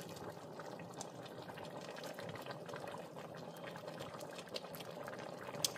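Pot of seafood soup broth simmering on the stove: a steady fine bubbling and popping.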